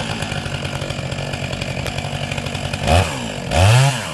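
Chainsaw idling with an even pulse, then revved up twice in quick throttle blips near the end.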